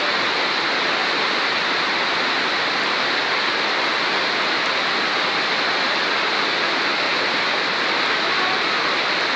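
Torrential rain and floodwater rushing along a street in a steady, unbroken wash of water noise.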